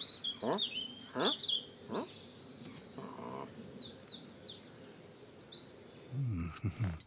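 Birds chirping and trilling in quick high runs of notes. Three long falling whistle-like sweeps sound in the first two seconds, and a short low vocal sound comes near the end.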